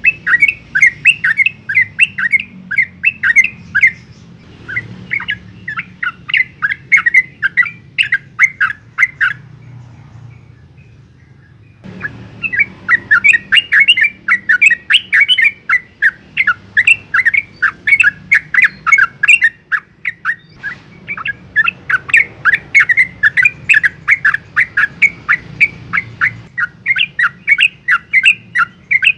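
Yellow-vented bulbul (trucukan) singing long, rapid runs of chattering, sweeping notes, about four or five a second. The runs come in bursts separated by short breaks, with a longer pause about ten seconds in.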